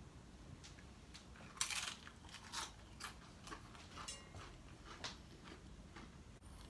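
People chewing crunchy food dipped in salsa: scattered short crunches, the loudest a brief burst about a second and a half in.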